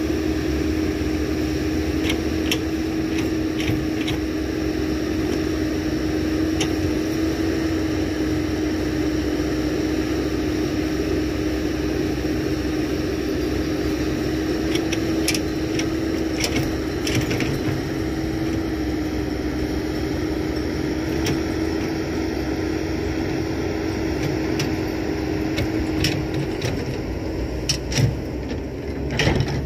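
Diesel engine of heavy earthmoving machinery running steadily, a constant whine over a low rumble, with scattered sharp clicks and knocks and a few louder knocks near the end.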